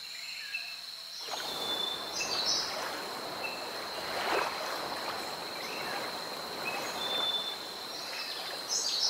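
Jungle wildlife ambience: a steady high insect drone and scattered short bird chirps over a rushing, water-like hiss that swells in about a second in.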